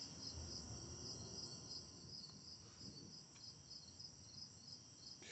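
Faint chorus of night crickets: a steady high trill with a pulsed chirp repeating about three times a second.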